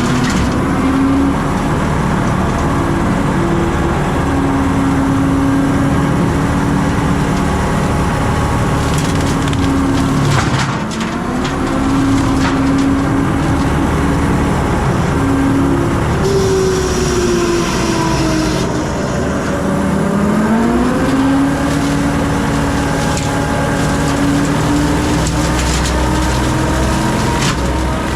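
John Deere 326E skid steer's diesel engine running hard while its hydraulic brush cutter chews through brush, with wood cracking and splintering throughout. The engine note dips twice, around ten seconds in and again around twenty seconds, then recovers.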